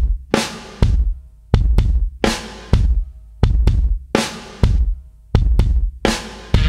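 Music with heavy, punchy drum hits in a steady beat; fuller, sustained instruments come in near the end.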